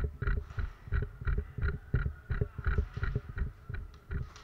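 Footsteps of a player moving quickly on a hard floor, dull thumps about three a second with a light rattle of gear, over a faint steady hum.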